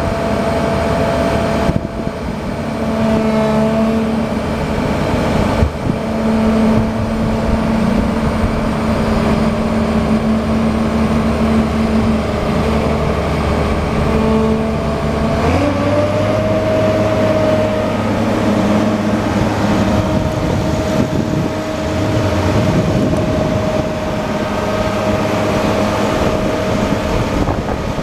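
1997 Case IH 2188 combine's diesel engine running steadily. Its pitch steps up about halfway through as the engine speed rises.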